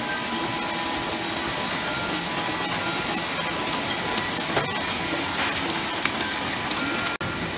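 Poly wrapping machine running on a mailing line: a steady hissing mechanical noise with faint hum tones and an occasional sharp tick, one clear tick about halfway through. The sound drops out for an instant near the end.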